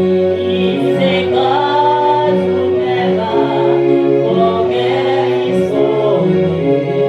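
Gospel music: voices singing over long held chords.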